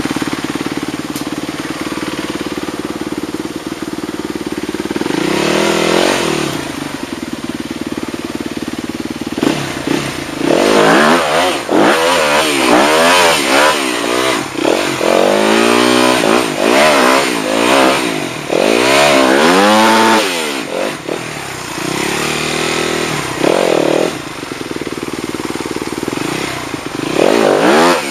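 Motorcycle engine running steadily, then revved hard again and again from about ten seconds in, its pitch rising and falling with each burst of throttle.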